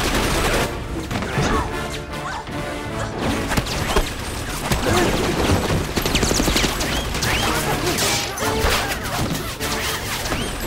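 Action-film soundtrack: crashes and hits from a fight under a busy music score.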